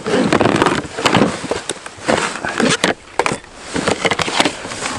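Rummaging in a plastic fishing box: a dense rustle of fabric and padded bags, broken by frequent sharp clicks and knocks as items are moved about.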